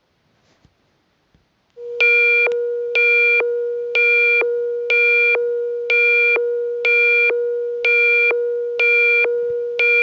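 Synthesized emergency-alert attention tone: a steady mid-pitched tone starts about two seconds in. A harsher, buzzing pulse of the same pitch sounds over it about once a second, nine times.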